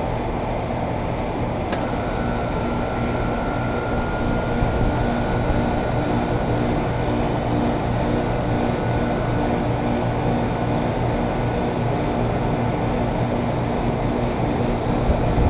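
2013 Trane XB13 2.5-ton heat pump outdoor unit running in cooling mode: its reciprocating compressor hums steadily under the rush of the Genteq condenser fan. A sharp click comes about two seconds in, followed by a faint high steady whine.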